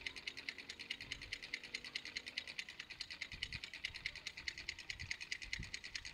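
Rapid, steady high-pitched ticking, about nine ticks a second, with a few soft low thumps.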